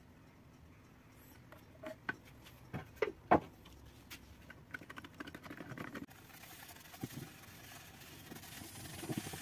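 A few sharp knocks and clicks of a metal tin of wood finish being handled on the workbench, the loudest about three seconds in. From about six seconds in, a faint steady rubbing as a gloved hand wipes finish onto the wooden lampshade head.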